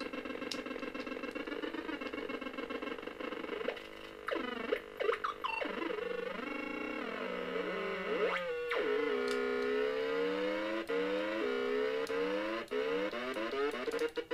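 Homemade Synthrotek NAND Synth board built into a Mr. Potato Head toy, first holding a steady buzzy drone. About four seconds in, its pitch starts swooping up and down as the ear-mounted oscillator knobs are turned, and repeated sweeping glides fill the second half.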